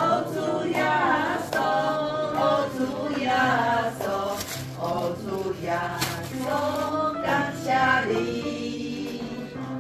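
Music: several voices singing a slow melody over a sustained low accompaniment.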